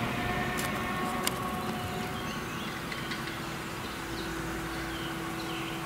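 Claas Jaguar 970 self-propelled forage harvester running under load, cutting and chopping triticale with its Direct Disc header, heard across the field as a steady engine drone with a held whine. A few short bird chirps come in near the end.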